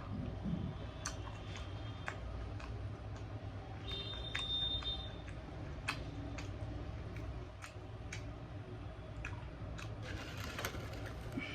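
Close-up chewing and biting while eating chicken with roti, with scattered small mouth clicks and smacks.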